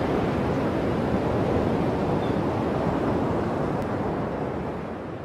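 Steady rushing hiss with no pitch or rhythm, fading away over the last second or so.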